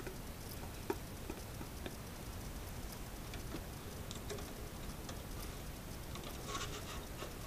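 Scattered light clicks and taps of a hand handling a small plastic two-bay Thecus NAS enclosure, with a short plastic rattle about six and a half seconds in.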